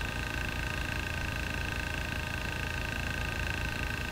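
Steady helicopter drone: a low rumble under two steady high-pitched tones.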